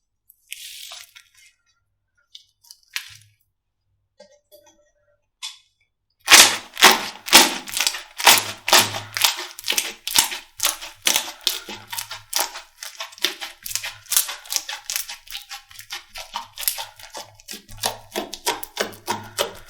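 Slime being squeezed and poked, crackling and popping: a few scattered clicks at first, then from about six seconds in a fast, loud run of clicks and pops, several a second.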